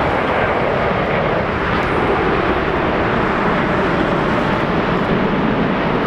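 Boeing 787-9 Dreamliner's jet engines heard on final approach with gear down: a steady, unbroken rushing noise that holds an even level.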